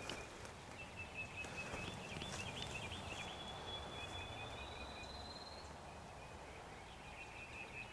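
Quiet outdoor ambience with a faint low rumble and thin, high whistled bird song that warbles briefly and then glides upward near the middle.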